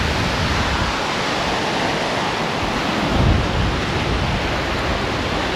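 Small surf breaking and washing up a sandy beach, a steady rush of water, with wind gusting on the microphone about three seconds in.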